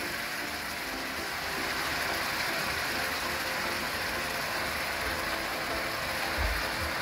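Sauce and stir-fried vegetables sizzling steadily in a hot wok as sweet-and-sour sauce is poured in.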